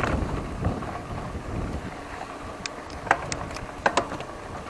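Mountain bike riding over a trail: a steady low rumble of wind buffeting the microphone, with a cluster of sharp rattles and clicks from the bike between about two and a half and four seconds in.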